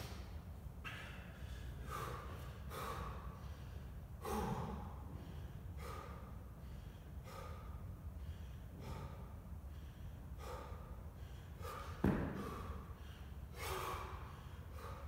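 A man breathing hard from exertion during a continuous, no-rest kettlebell set, with forceful exhalations about one every second or so. A single thud about twelve seconds in.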